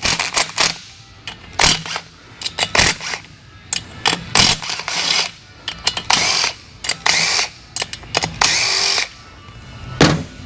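A cordless power drill spinning out engine fasteners in a series of short bursts, some half a second to a second long, with sharp clicks and clinks of tools and parts between them.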